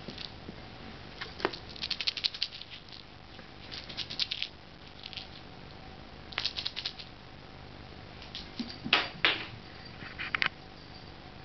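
A kitten scampering and playing with a toy rat on a wooden floor: several quick runs of light clicking and pattering, the loudest near the end.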